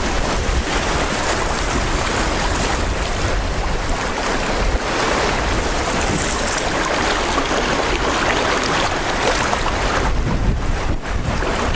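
Shallow river water rushing over rocks, heard close to the water, with wind buffeting the microphone.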